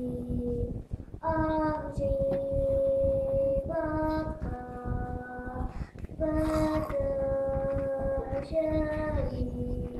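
Child's voice singing a slow tune in long held notes, four phrases with short breaks between them.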